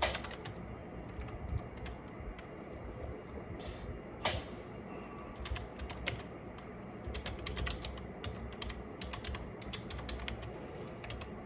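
Typing on a Logitech K480 wireless keyboard: irregular key clicks in short runs, quicker for a few seconds past the middle, with a few harder keystrokes among them.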